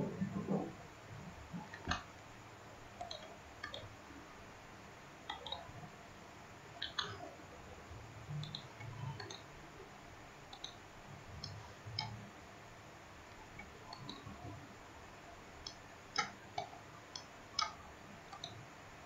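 Quiet computer mouse clicks, well over a dozen at uneven intervals and crowding together near the end. Each click places the next point of a curve being drawn in CAD software.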